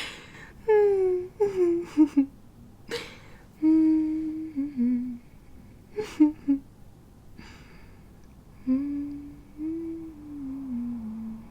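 A woman humming a slow melody in short phrases, with held notes that step downward, and short breaths between phrases over faint steady background noise.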